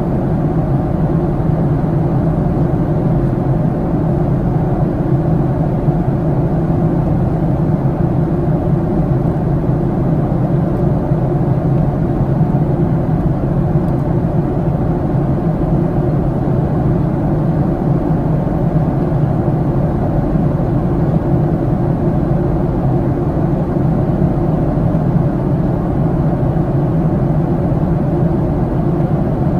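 Steady low rumble of engine and airflow noise inside the cabin of a Boeing 737-700 airliner, unchanging throughout.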